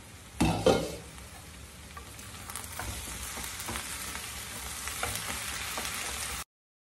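Sliced vegetables sizzling in a non-stick frying pan while being stirred with a steel spoon, with light scrapes and taps of the spoon on the pan. A couple of loud knocks come about half a second in, and the sound cuts off suddenly near the end.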